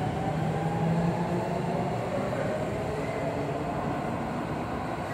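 Seibu 6000 series electric train pulling away through an underground station: its running rumble and a faint motor whine fade as it moves off.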